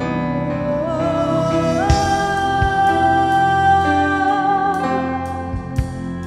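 A song with a singing voice over instruments, laid under the video as background music. The voice steps up and holds one long note through the middle, with a few drum hits near the end.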